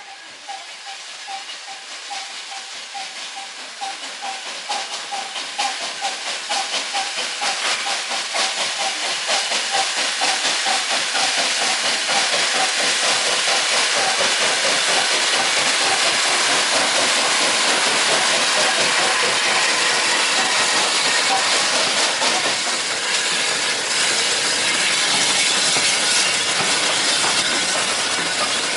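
A Hunslet 0-6-0 saddle tank steam locomotive approaches with its coaches, giving a regular beat of exhaust chuffs over hissing steam. The sound grows louder through the first half, then the coaches roll past close by.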